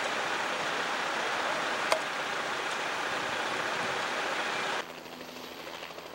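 Fast water rushing and churning, a steady loud rush, with one sharp click about two seconds in. Near the end it cuts to the quieter, steady hum of a helicopter's engine as it lifts off.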